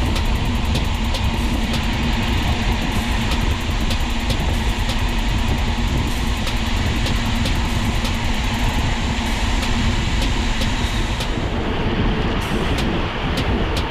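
Wind rushing over the microphone and road rumble while riding a road bicycle, with a light, regular ticking about three times a second that becomes sparser near the end.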